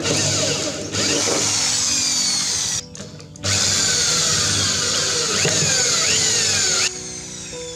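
Electric drill with a step drill bit boring through a plastic jar lid. It runs twice, with a short pause about three seconds in, and stops near the end.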